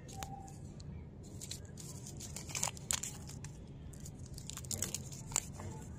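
Lollipop wrapper being unwrapped by hand: irregular crinkling and tearing crackles of the wrapper, with the loudest crackles about two and a half to three seconds in and again around five seconds in.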